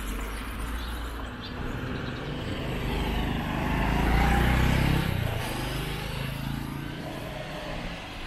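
Road traffic with a motor vehicle passing close by, growing louder to a peak about four to five seconds in and then fading as it moves away.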